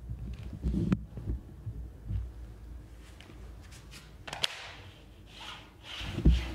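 A few dull, low thumps with some faint rustling, and a sharp click about four and a half seconds in; the loudest thump comes near the end.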